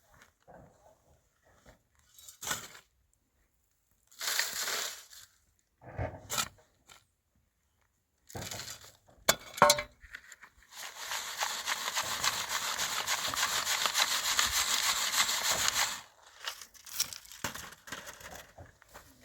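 Dry soil being scraped and sifted by hand: several short scrapes and crunches with a couple of sharp knocks, then a steady gritty rush lasting about five seconds.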